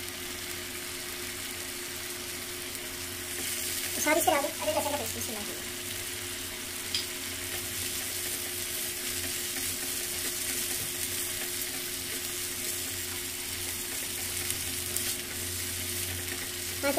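Chicken pieces in milk and oil sizzling steadily in a karahi as the milk cooks down, stirred with a silicone spatula. A brief louder wavering sound comes about four seconds in.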